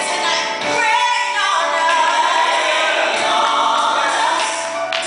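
Gospel song with a choir singing sustained, held notes over the accompaniment.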